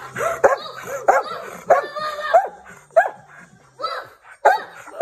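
Bernese Mountain Dog barking in a string of about nine short, yelping barks that bend in pitch, roughly two a second, with a short pause after about three seconds.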